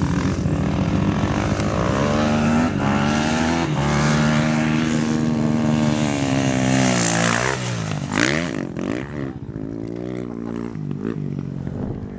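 KTM dirt bike engine held at high revs as it climbs a sand dune toward the camera. About two-thirds of the way in the pitch swings down and back up as the bike comes by close, then the engine grows quieter.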